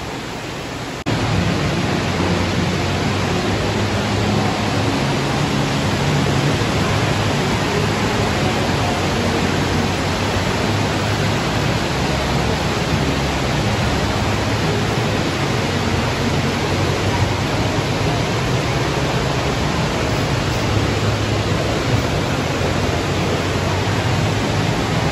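Steady rushing of an indoor atrium waterfall, which gets louder about a second in and then holds even.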